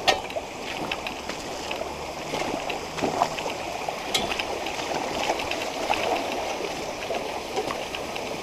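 Boots wading through a shallow rocky creek: water sloshing and splashing irregularly with the steps over the steady rush of the stream. A sharp knock comes right at the start and another about four seconds in.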